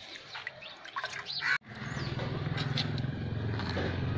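Milk squirting and dripping into a metal pail during hand milking, with birds chirping. About a second and a half in, the sound cuts off abruptly and a steady low rumble follows.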